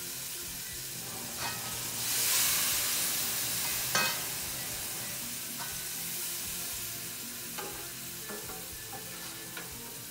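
Chopped seasoning sizzling as it fries down in a little oil in an aluminium pot, the sizzle swelling louder about two seconds in. A metal spoon stirring it gives scattered clinks against the pot, the sharpest about four seconds in.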